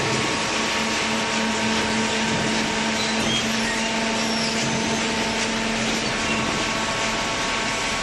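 Automatic horizontal cardboard baler running: a steady machine hum with a constant low tone under a hissing rush, holding even throughout.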